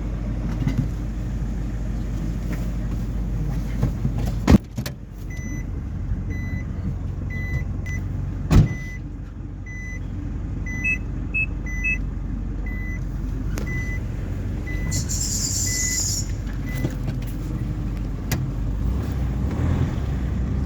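Steady low rumble of a car on the move, with two sharp knocks a few seconds apart. In the middle a short high electronic beep repeats about twice a second for roughly ten seconds, and a brief hiss follows near the end.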